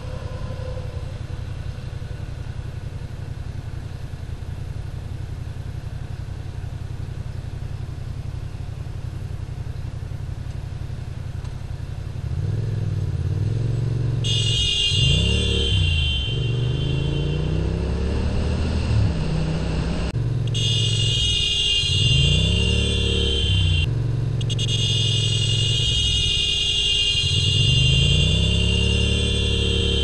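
Yamaha MT-07's parallel-twin engine idling steadily, then about twelve seconds in revving up and shifting through the gears as the bike pulls away, its pitch rising and dropping several times. From about fourteen seconds a shrill alarm-like buzzing sounds over the engine, cutting out briefly twice.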